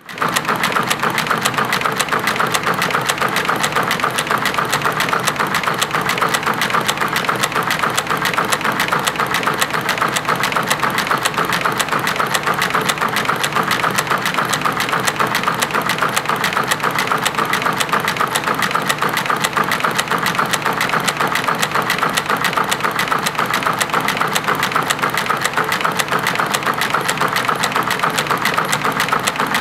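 A 90-year-old WWII-era narrow-fabric shuttle loom running at speed, weaving webbing: a fast, even, unbroken mechanical clatter.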